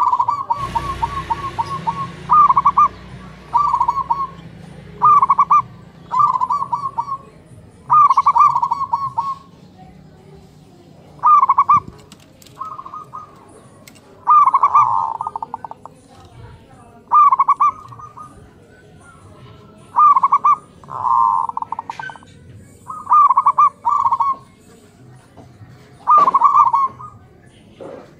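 Zebra doves (perkutut) cooing, several birds answering one another: short, rapid, stuttering trilled coos repeated about every one to two seconds. A low background rumble fades out over the first several seconds.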